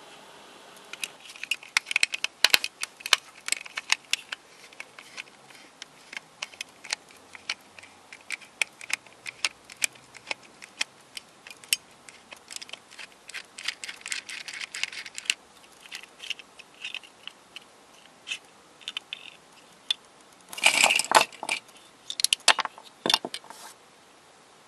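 Small screwdriver unscrewing the long central screw from a plastic Square-2 puzzle core: a long run of light clicks and scrapes of metal on plastic, then a louder rattle of plastic parts a few seconds before the end.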